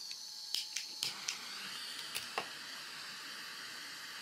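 Small motor of a homemade thermoelectric (Peltier-powered) stove fan spinning fast, giving a steady high whine with a hiss. A few light ticks come in the first two and a half seconds.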